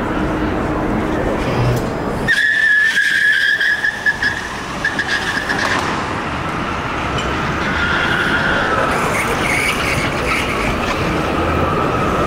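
Car tyres squealing in long, drawn-out high tones over a steady background din: a squeal from about two seconds in to about six seconds, then another wavering one from about seven seconds to the end.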